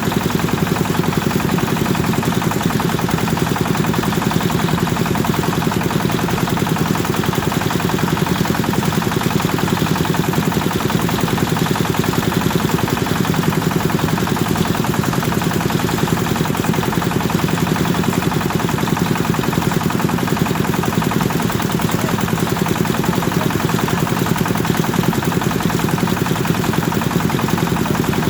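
Kubota engine driving a rice thresher, running steadily with a rapid, even exhaust beat.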